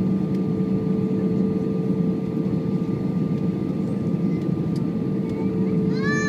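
Steady cabin noise of an Airbus airliner in flight, engines and airflow heard from inside the cabin over the wing, with a constant hum and a steady tone above it. A short voice comes in at the very end.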